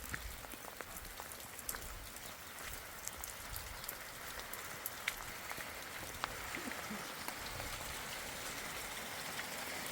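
Steady rain falling, with many separate drops clicking and pattering close by.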